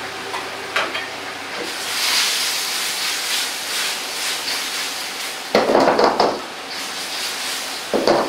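Chili sauce with tofu bubbling and sizzling in a carbon-steel wok over a gas burner, with a steady hiss. Twice, about two-thirds of the way in and again near the end, there are loud, short scraping splashes as a ladle stirs in a starch-and-water slurry to thicken the sauce.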